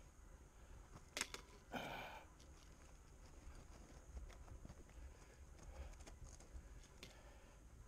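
Quiet footsteps of a hiker on a rocky bush track, with two sharp clicks followed by a short scuff about a second and a half in, and a low rumble of camera handling underneath.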